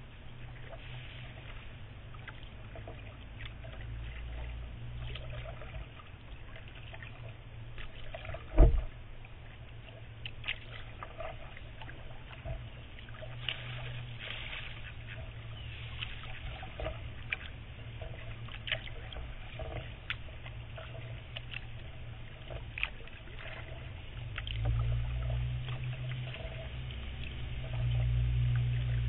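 Kayak paddle dipping into calm creek water, with small splashes and drips from the blade. There is one loud knock about eight and a half seconds in, and a low rumble that swells near the end.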